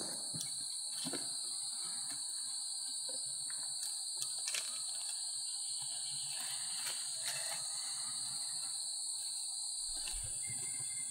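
Steady high-pitched drone of forest insects, with a sharp snap at the very start and a few light knocks of wood being handled.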